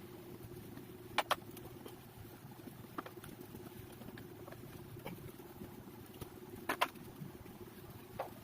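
Scattered light clicks and knocks, a pair of sharper ones about a second in and another pair near the end, over a faint steady hum.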